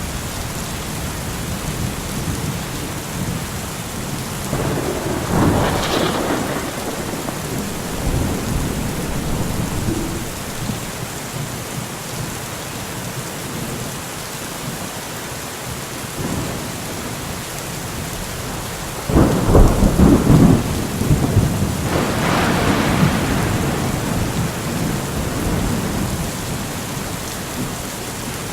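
Steady rain falling during a thunderstorm, with thunder rumbling twice: a rumble about five seconds in, and a louder, longer one breaking out suddenly after about nineteen seconds.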